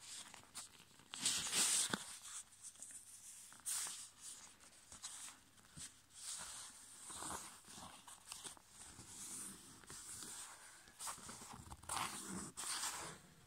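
A sheet of A5 copy paper being folded and creased by hand against a tabletop: irregular paper rustles and scrapes as fingers run along the folds, the loudest about a second and a half in and again near the end.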